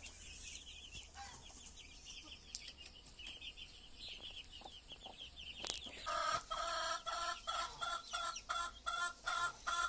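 Farmyard poultry calling: faint, rapid high-pitched chirping, then about six seconds in a run of short repeated clucking calls, several a second.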